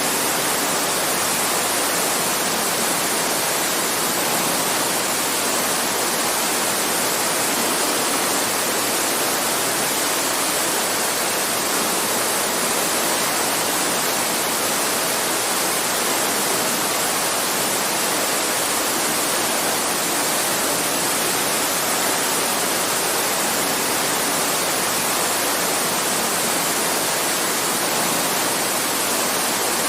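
Campfire ambience: a steady, even hiss with no distinct pops standing out.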